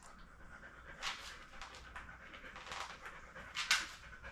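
A dog panting in a few short, airy breaths.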